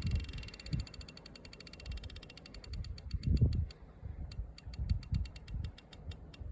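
Fishing reel clicking in a quick run of ticks that slows down, pauses briefly, then starts again at a slower, even rate, over low thumps of wind or handling on the microphone.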